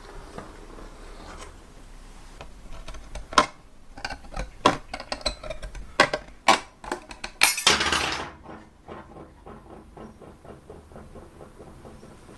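Hard objects clinking and knocking at irregular intervals, like metal parts and hand tools handled on a work surface. A short rough rush comes a little past the middle, then a run of light quick ticks.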